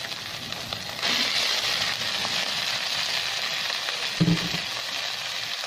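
Tomato and tuna sauce frying in oil in a pan. About a second in, the sizzling grows louder as cooked spaghetti is added to the pan. There is one short knock about four seconds in.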